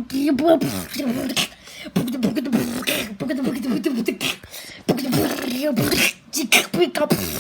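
A person beatboxing: mouth-made percussive clicks and pops mixed with pitched vocal sounds.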